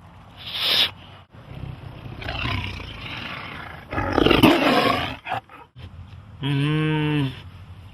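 Tiger roaring and snarling in several rough outbursts, loudest about four seconds in. Near the end comes a short animal call held on one steady pitch.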